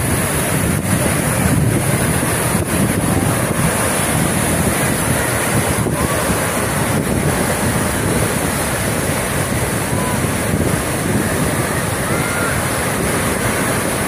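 Stormy sea surf breaking and washing on the shore, with wind buffeting the microphone.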